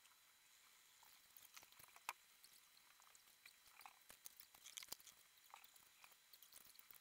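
Faint scratching and light tapping of a ballpoint pen making quick strokes on cardboard, starting about a second in.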